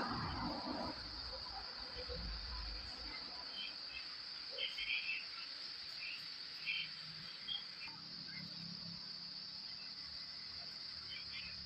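Steady high-pitched chorus of crickets, with a few light clicks around the middle as a small transistor's wire leads are handled and pressed onto the copper wire.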